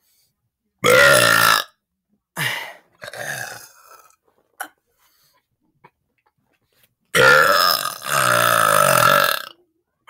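A teenage boy's deliberate, forced burps: a loud burp about a second in, a few short, softer sounds, then a long, drawn-out burp lasting over two seconds from about seven seconds in.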